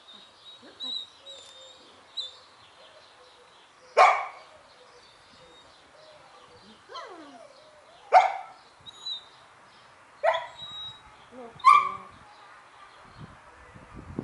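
A dog barking in single short, sharp barks, the first about four seconds in and the rest a second or two apart, with a falling whine between them.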